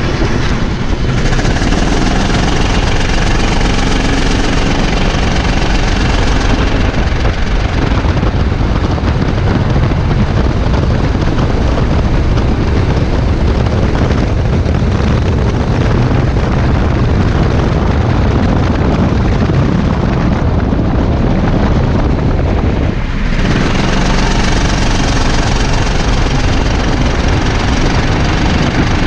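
Go-kart engine running hard as the kart laps the track, heard close up from on board with rushing wind noise. The sound dips briefly about 23 seconds in, then picks up again.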